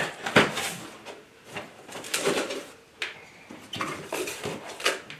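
Handling noise from unpacking a grow tent kit: a string of sharp knocks and clatters at irregular intervals, with the loudest one about half a second in.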